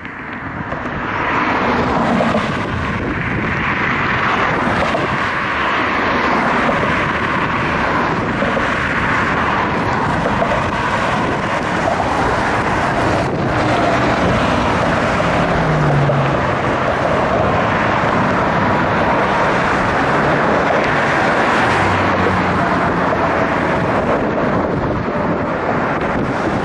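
Jet noise from Blue Angels F/A-18 Hornets flying over, swelling over the first two seconds and then holding loud and steady.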